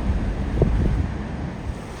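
Strong gusty wind buffeting the microphone: a low, uneven rumble with irregular thumps, easing a little after about a second.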